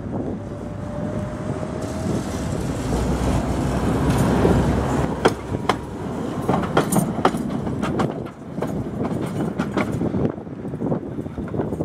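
Tatra T3SUCS tram approaching and passing close, its running rumble building up. Then a run of sharp clacks as its wheels roll over the rail joints and crossing of the track junction.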